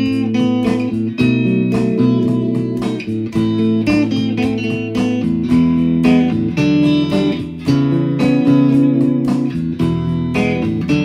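Instrumental music led by guitar over sustained bass notes, with a steady beat.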